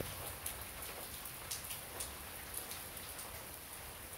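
Steady rain falling, with scattered single drops tapping sharply on a nearby surface.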